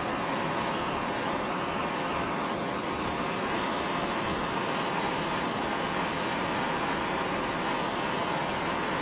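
Hand-held gas torch burning with a steady, unbroken hiss as it heats an aluminum angle bracket.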